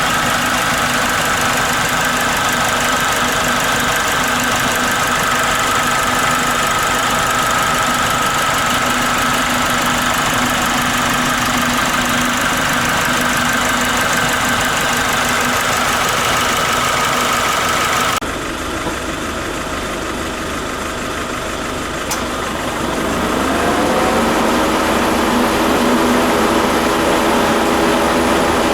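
Nissan NV350 Caravan diesel engine idling with the air conditioning on, a continuous hiss over it: the abnormal noise that comes with the AC not cooling, which the owner takes for a likely refrigerant gas leak. About two thirds of the way through, the hiss and the higher tones cut off abruptly. A few seconds later a whine rises in pitch as something spins up.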